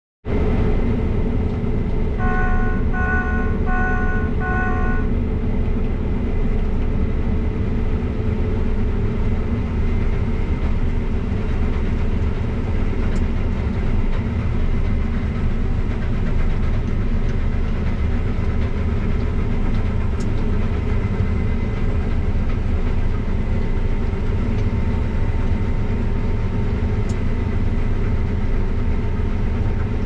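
Steady drone of a combine harvester heard from inside its cab while harvesting canola: engine and threshing machinery running at a constant pitch. About two seconds in, four short electronic beeps sound, roughly one every 0.8 seconds.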